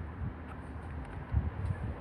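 Wind rumbling on the microphone, swelling briefly a little past the middle, with a couple of faint ticks.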